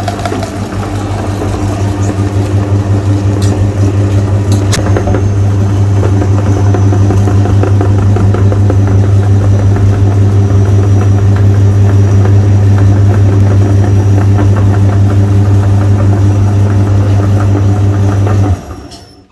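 Electric meat grinder running loudly with a steady motor hum and a dense, rapid crackle as it grinds frozen Magnum ice cream bars. There are two sharp clicks about four seconds in, and the motor cuts off abruptly near the end.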